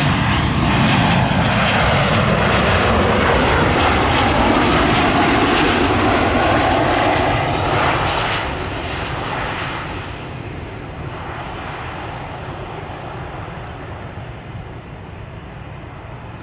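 Boeing 737-800 airliner with CFM56 turbofan engines passing close on arrival. The jet noise is loud for about eight seconds, then drops away and keeps fading as the aircraft moves off.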